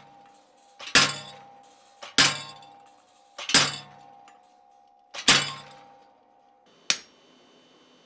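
Treadle hammer driving a handled chisel into a cold steel railroad spike: four sharp, ringing metal blows about a second and a half apart, cutting a layout line for a Rubik's cube twist. A lighter single clink comes near the end.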